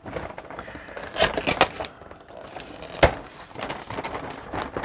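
Cardboard box being opened by hand: the lid and flaps scraping and rustling, with a few sharp clicks about a second in and a single louder snap about three seconds in.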